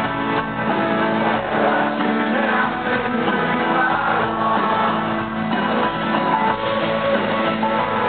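Live rock band playing, with a strummed acoustic guitar to the fore, recorded from within the audience.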